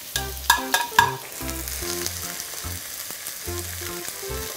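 Garlic and sliced green onion sizzling in hot cooking oil in a non-stick wok. In the first second come a few sharp taps of a wooden spoon scraping them off a plate, then a steady sizzle while they are stirred.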